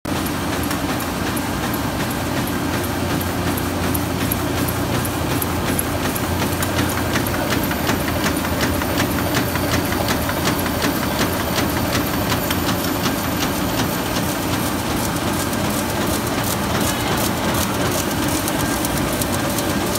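Mitsubishi Diamond 3000 four-colour sheet-fed offset printing press running in production: a steady mechanical hum with a fast, even clatter.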